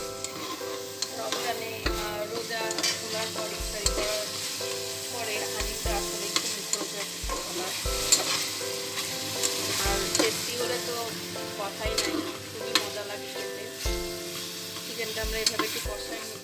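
Chicken pieces and spices frying in oil in a pot, sizzling as they are stirred with a spatula, with irregular scrapes and knocks of the spatula against the pot.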